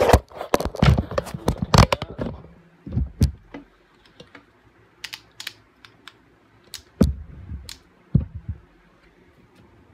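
Hand tools clicking and knocking on metal as the LT1 V8's intake manifold is unbolted: a quick run of clicks for about two and a half seconds, then scattered single knocks.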